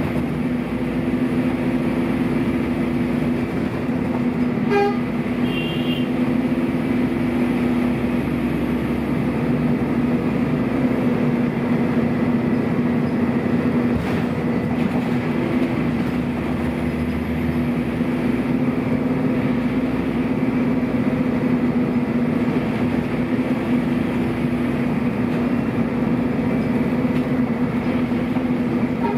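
Scania N230UB bus's Scania DC09 nine-litre five-cylinder diesel running steadily, with its cooling fans on, making a constant hum. A brief high chirp sounds about five seconds in.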